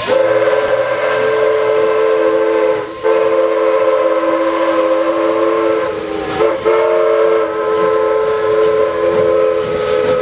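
Chime whistle of Durango & Silverton steam locomotive No. 482 blowing long, steady chords over steam hiss, briefly broken about three seconds in and again just past six seconds.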